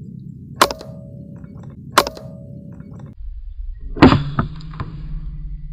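Two sharp air-rifle shots about a second and a half apart, each with a short metallic ring. About four seconds in comes a louder cluster of knocks.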